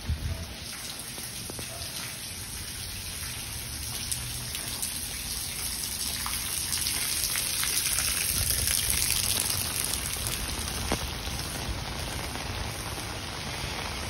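Steady patter of falling water, a dense hiss made of many small drops. It slowly swells to its loudest a little past the middle, then eases off.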